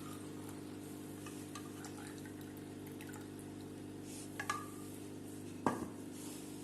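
Hot herbal decoction (kadha) being strained and poured, with small ticks and taps of the vessels, a sharper tap about two thirds of the way in, over a steady low hum.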